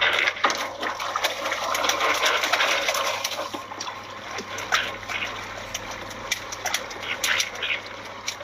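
Water splashing and pouring at the boat's side during net fishing, a steady rush with many small knocks and clicks, over a low steady hum.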